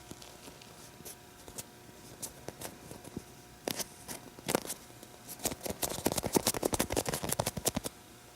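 Hands squeezing and handling a small foam squishy toy, giving scattered soft crackles. From about five seconds in to near the end, the crackling becomes a dense, rapid run.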